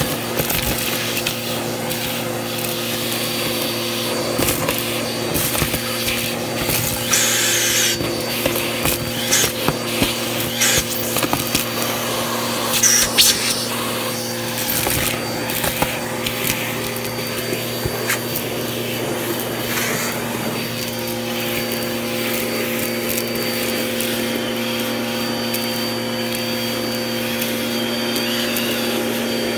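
Vacuum cleaner running steadily as it sucks up a heap of dry debris from carpet, with crunchy crackling and rattling as the bits are pulled into the nozzle, densest in the middle stretch. From about two-thirds of the way in, an extra higher hum joins the motor tone.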